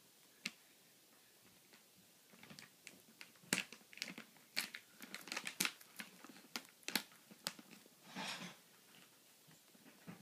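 A two-month-old rabbit crunching a piece of carrot held out by hand: a run of quick, irregular crisp bites. A short rustle follows about eight seconds in.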